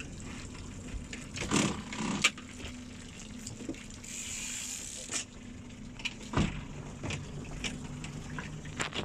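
Water sloshing around a small boat, with a few short knocks and a brief hiss about four seconds in, over a steady low hum.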